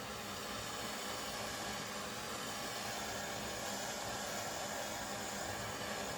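Steady hiss from the heating tool (the "heater") blowing heat onto a Sheridan air rifle's brass breech to melt solder into the joint; it gets slightly louder about a second in.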